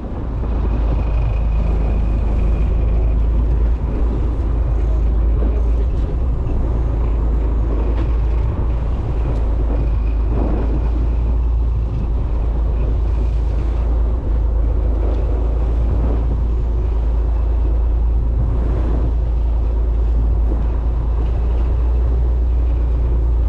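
Fishing boat's engine running steadily under way, a loud, even low rumble.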